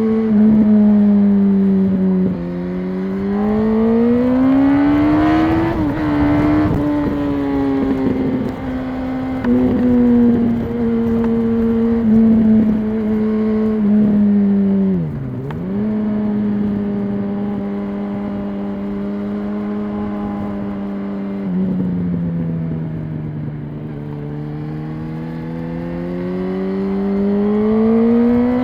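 2006 Yamaha R1's inline-four engine on its stock exhaust, heard from the moving bike. Engine speed steps down and then climbs for a few seconds, holds steady for a long stretch with one brief dip midway, steps down again later and slowly climbs near the end.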